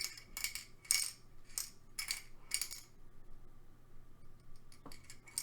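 Small balls clicking and rattling inside a handheld ball-in-hole dexterity puzzle as it is tilted. About five sharp clicks come roughly half a second apart, then it goes quieter, with a few faint clicks near the end.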